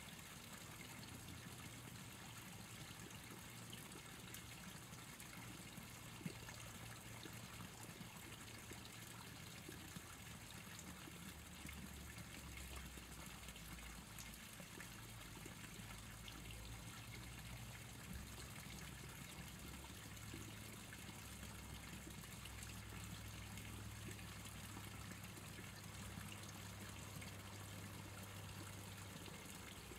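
Faint streamside ambience: a soft, steady hiss of trickling water under a low distant hum from the surrounding city. A single small click comes about six seconds in.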